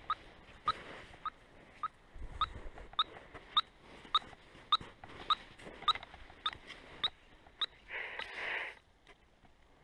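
Handheld VHF radio-telemetry receiver beeping with a wildlife tracking collar's signal: short, sharp chirping pulses, a little under two a second, until about seven and a half seconds in. The beeps are strong because the receiver is right on top of the transmitting collar. A brief burst of hiss follows, about a second long.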